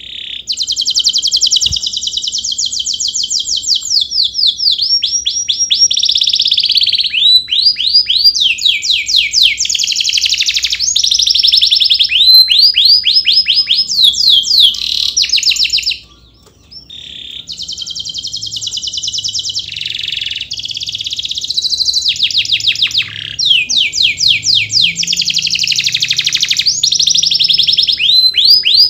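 Domestic canary singing a long, continuous song of fast trills and rolled phrases, each made of quickly repeated notes, with one short pause a little past halfway.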